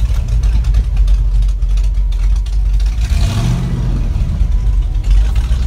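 Monster truck's engine running slowly, heard from inside the cab, with a short rev about three seconds in that rises and falls in pitch.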